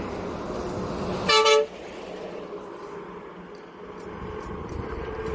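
A vehicle horn gives one short, loud toot about a second and a half in, over the rumble of road traffic passing close by; the rumble drops away just after the toot.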